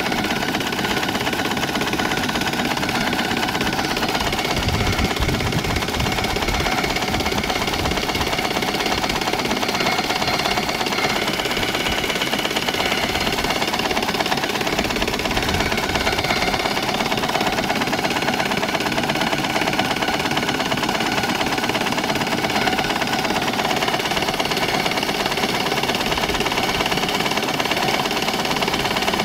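A small single-cylinder steam engine, 38 mm bore and stroke, fed by a coal-fired copper boiler, running steadily as it drives a steam canoe's propeller at cruising speed. The mechanical running sound stays even throughout.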